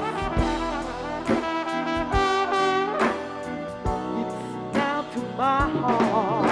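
Live band music led by a trumpet-type brass horn playing sustained, wavering notes over a drum kit that strikes about once a second.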